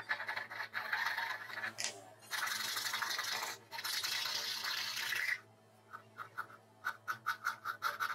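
Flat metal file rasping back and forth in a drilled slot in plywood, cutting it into a smooth elongated slot: three long strokes, then quick short strokes near the end.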